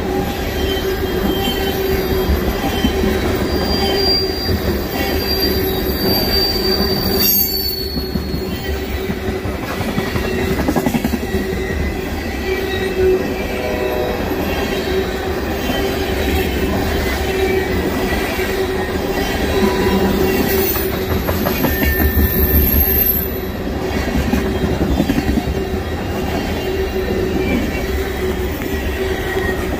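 Freight train rolling past, a continuous rumble of steel wheels on rail, with high-pitched wheel squeals about a quarter of the way in and again around three-quarters through.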